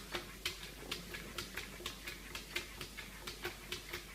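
A calico cat's paws tapping against mirror glass as it bats at its reflection: a string of light clicks, several a second and slightly uneven.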